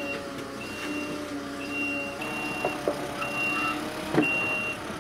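Telehandler's diesel engine running while its warning alarm beeps, six high steady beeps about once a second. A sharp knock about four seconds in.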